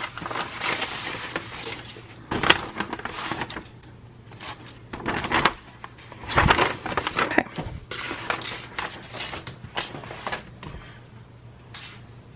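A paper envelope and plastic-bagged craft supplies being handled: rustling and crinkling of paper and plastic, with scattered knocks as the items are set down on a table, the heaviest a thump about six and a half seconds in.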